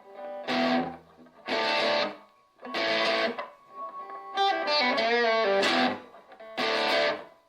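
Donner DST-1 Strat-style electric guitar played through its 3-watt Donner practice amp. Three short strummed chords, each cut off, then a longer phrase of bent, wavering notes, then one more short chord near the end.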